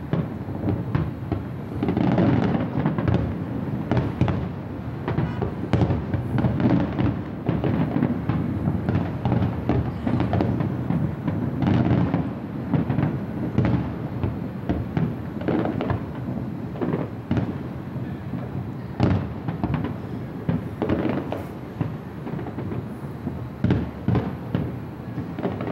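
Aerial firework shells bursting in quick succession over the river: many booms one after another over a continuous low rumble.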